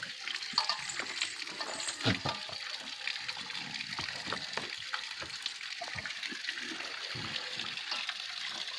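Water running and splashing: a steady hiss with many small irregular clicks and knocks over it.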